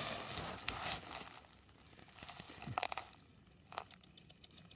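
Rustling and crinkling noise that fades away over the first second or so, followed by a few scattered sharp clicks.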